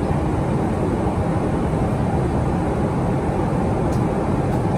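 Steady cabin noise of a Boeing 777-300ER in flight, heard from inside the cabin: the low, even sound of its GE90 engines and the airflow past the fuselage.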